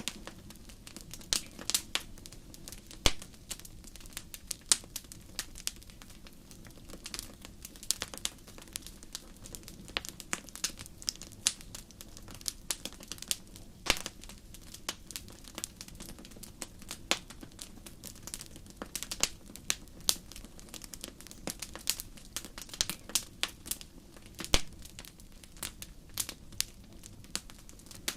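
Wood fire in a fireplace crackling: irregular sharp pops and snaps, a few of them much louder, over a low steady rumble.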